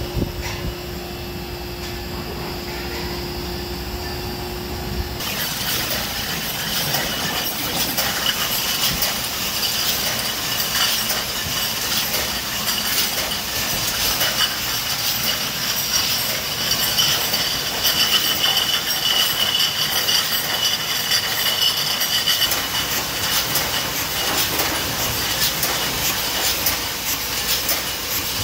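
Steady machine hum with one held tone from the K+H inline carbonation skid. About five seconds in this gives way to the Kosme rotary counter-pressure filler running: glass wine bottles clinking and clattering through it, with many small clicks and a steady high hiss.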